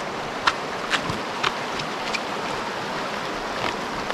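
Shallow river running over rocks and riffles, a steady rushing, with a few short sharp clicks in the first half.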